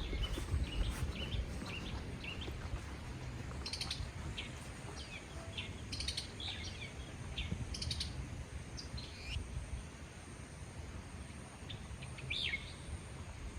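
Small birds chirping and trilling in short, scattered high calls, over a low rumbling background noise.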